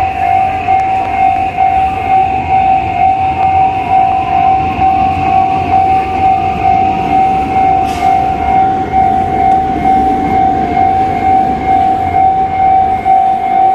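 Japanese railway crossing warning bell ringing in a steady, evenly repeating pulse, over the low rumble of a train going through the crossing.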